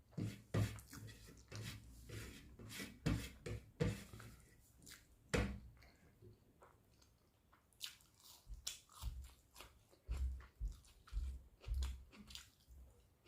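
Close-up mouth sounds of a person eating egg curry with rice and green chillies: irregular chewing with sharp wet smacks and clicks. There is a lull of about two seconds in the middle.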